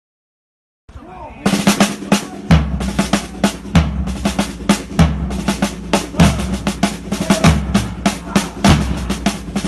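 Drum-heavy music starting about a second in: rapid snare drum hits and bass drum beats over a low bass line.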